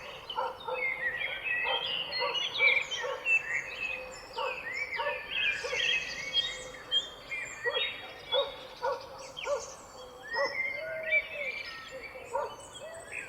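Several birds singing and calling at once: many overlapping chirps and quick whistled phrases, with short low notes repeating throughout.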